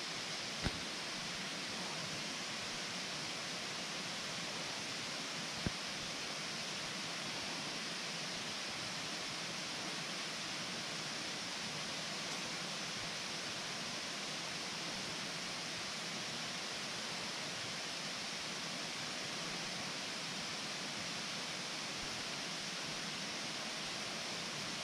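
Steady, unchanging hiss of outdoor background noise, with a couple of faint clicks near the start and once more after about five seconds.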